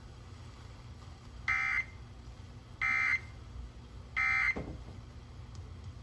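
Three short bursts of Emergency Alert System end-of-message data tones, the buzzy digital SAME code, from a boombox radio's speaker. Each burst lasts under half a second, and they come about a second and a half apart. They mark the end of the relayed flash flood warning.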